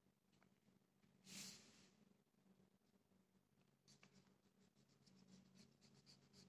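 Faint rubbing of hands over a sheet of printing paper, burnishing it onto an inked plate to transfer the white ink: one longer swish about a second in, then quick short rubbing strokes from about four seconds in.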